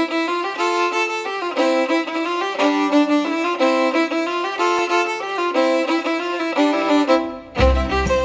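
Background music: a fiddle playing a quick, lively melody of short notes. A low bass line comes in near the end.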